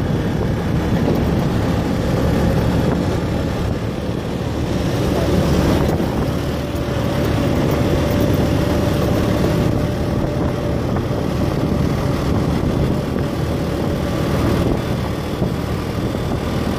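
Steady traffic and road noise heard while riding along a road, with wind on the microphone and a low engine hum; a faint steady whine runs through the middle.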